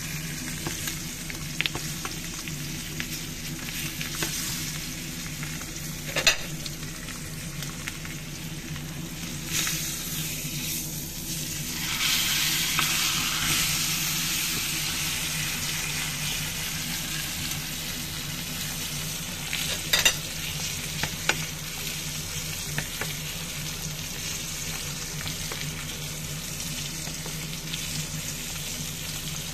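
Bone-in Angus beef steak sizzling in hot fat in a cast-iron skillet, the sizzle swelling louder for a few seconds around the middle. A few sharp knocks stand out against the pan, over a low steady hum.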